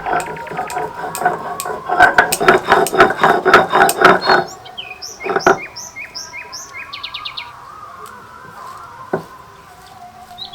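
Small birds chirping: a string of short, high, falling chirps and a quick trill. This follows about four seconds of loud, rapid clattering strokes at the start.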